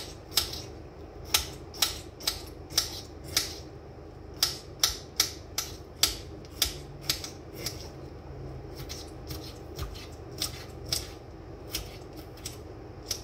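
Kitchen knife cutting bell pepper on a cutting board: irregular sharp taps, two or three a second, growing softer in the second half.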